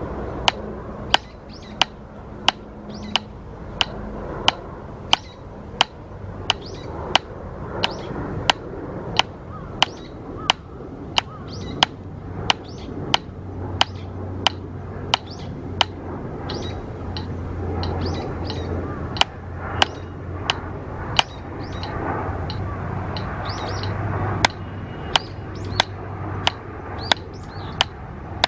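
Drumsticks striking a drum practice pad in single strokes, about two sharp taps a second, with a few short pauses; birds chirp between the taps.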